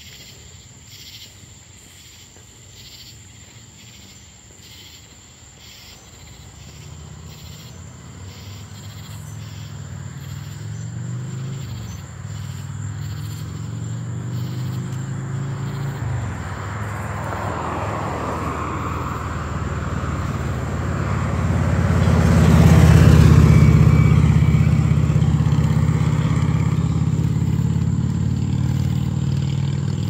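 A motor vehicle approaching along the road and passing close by: engine hum and tyre noise build over about fifteen seconds, peak a little past the two-thirds mark, then slowly fade. Crickets chirp steadily underneath at the start.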